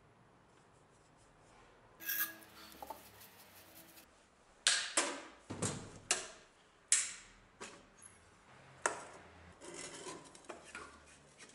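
Sharp metallic clicks and clanks from the door and latch of a sheet-metal electric heat-treating furnace being worked open, about eight strong ones in quick succession, then lighter rattling near the end.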